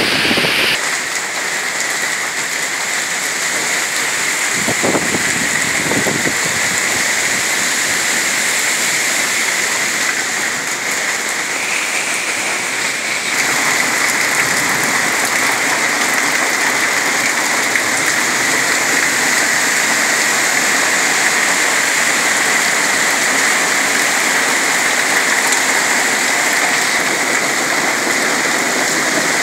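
Heavy rain pouring down steadily in a summer storm, growing a little louder about halfway through.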